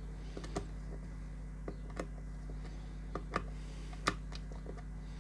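A few scattered small clicks and taps from wires and plastic connectors being handled, over a steady low electrical hum.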